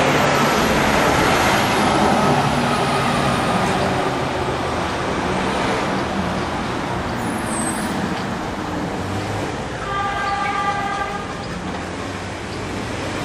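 City street traffic heard from the sidewalk: a steady wash of passing cars and other vehicles. About ten seconds in, a pitched tone sounds for a little over a second.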